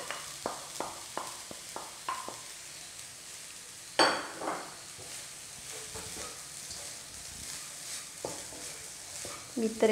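Fried rice sizzling in a hot pan while a wooden spatula taps and scrapes against it: a quick run of clicks at the start, one loud clatter about four seconds in, then a low steady sizzle with occasional light taps.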